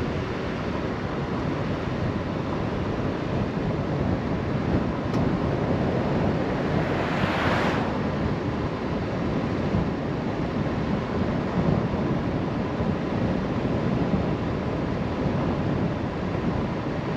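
Surf on the shore under steady wind noise on the microphone, with a louder wash of a breaking wave about seven seconds in.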